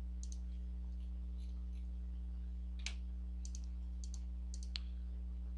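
A handful of sharp, scattered computer mouse clicks, the clearest about three seconds in, over a steady low electrical hum.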